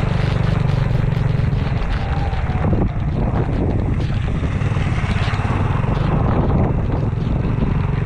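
Motorcycle engine running while riding in the rain, under a steady hiss of rain and wind. Its steady note breaks up about two seconds in, with a brief dip near three seconds, and settles again near the end.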